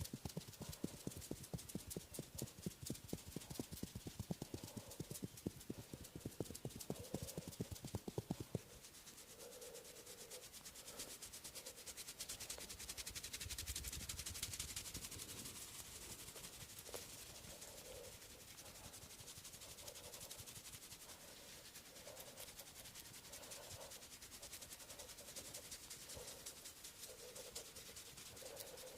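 Rapid, rhythmic percussive tapping of a masseur's hands on a head for about the first nine seconds. It then stops suddenly, giving way to quieter, steady rubbing of hands over skin and hair.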